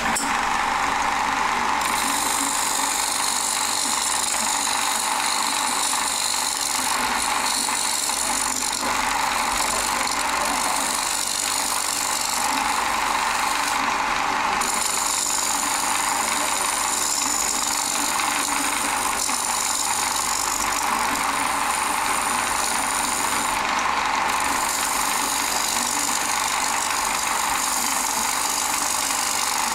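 Wood lathe running while a turning tool cuts into a spinning glued-up bowl blank of padauk and mahogany, a steady hiss of shavings coming off the wood. The high part of the hiss drops out briefly twice.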